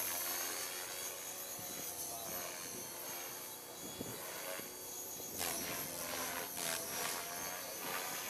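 Align T-Rex 500 EFL Pro electric RC helicopter flying overhead: a steady motor and gear whine with rotor noise, its pitch shifting a little. From about five seconds in come repeated rushes of blade noise.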